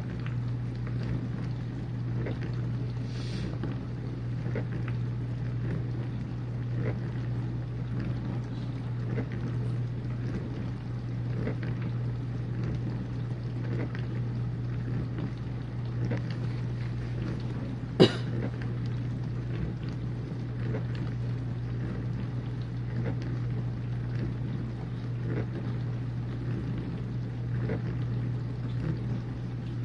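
Whirlpool dishwasher running mid-cycle: the steady hum of its pump motor under water swishing around the tub. There is one sharp click about two-thirds of the way through.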